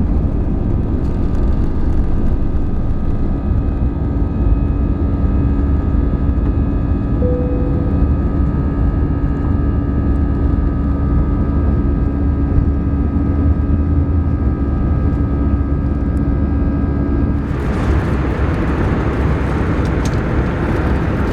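Airbus A320 cabin noise: the jet engines and cabin systems running with a steady low rumble and several held tones. About seven seconds in there is one short tone. About 17 seconds in the sound switches abruptly to a broader, hissier roar.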